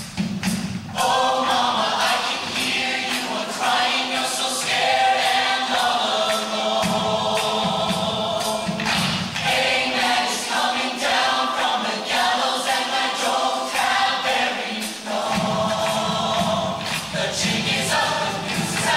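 Mixed-voice show choir singing in harmony over an instrumental accompaniment, punctuated by sharp percussive hits.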